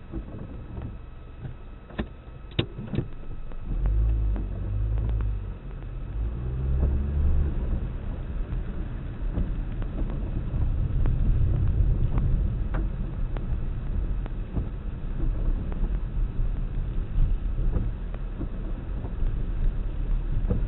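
Car driving, heard from inside the cabin: steady engine and road rumble that grows louder about four seconds in and stays up. A few sharp clicks come shortly before the rise.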